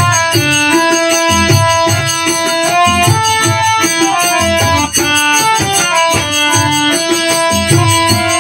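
Instrumental passage of a Newar devotional bhajan: a melody of held, stepping notes over a regular drum beat.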